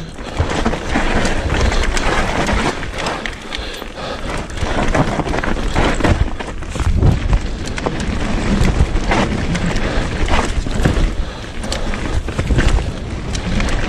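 Electric mountain bike riding fast down a dirt forest singletrack: the tyres rolling and crunching over dirt and leaves, with the bike rattling and knocking over bumps in a steady stream of short clacks.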